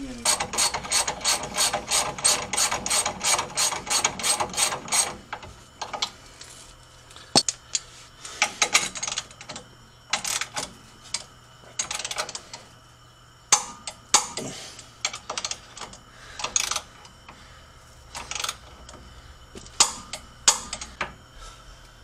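Ratchet wrench clicking on the brake bracket bolts: a quick, even run of about four clicks a second for the first five seconds, then short bursts of ratcheting and metal tool clanks.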